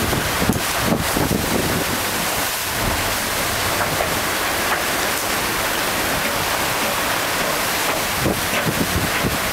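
Wind buffeting the microphone aboard a sailing catamaran under way, over a steady rushing hiss of water.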